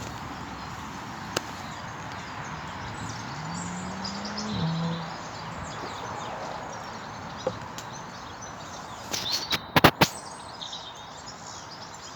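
Wind blowing steadily across the camp with small birds chirping, a short rising hum about four seconds in, and a quick cluster of sharp knocks about nine to ten seconds in.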